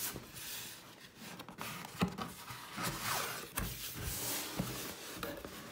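White cardboard mailer box being opened by hand: the lid rubbing and scraping against the box sides as it is lifted, with a few soft knocks about two and three and a half seconds in.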